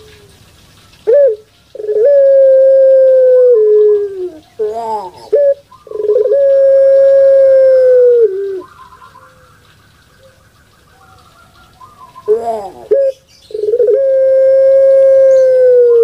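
Caged Barbary dove of the puter pelung type cooing loudly: three calls, each a few short rising notes followed by a long held coo that drops in pitch at its end.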